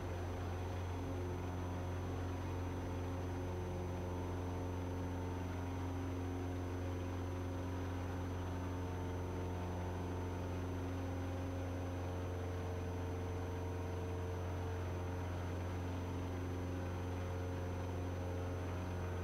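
Single-engine light airplane's piston engine and propeller at full power in a steep takeoff climb: a steady drone with a strong low hum.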